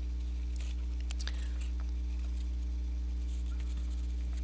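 Steady low electrical hum, with a few faint snips of scissors cutting paper in the first couple of seconds.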